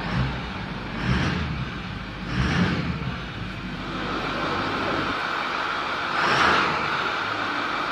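Ford 6.4L Power Stroke twin-turbo V8 diesel idling and revved up a few times, swelling and falling back. The exhaust manifold leaks have been fixed with new gaskets, so the engine runs without exhaust-leak noise.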